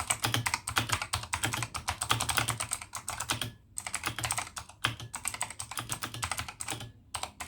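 Fast typing on a Razer Huntsman Elite mechanical keyboard fitted with HyperX double-shot PBT pudding keycaps: a rapid run of key clicks with two brief pauses, one midway and one near the end.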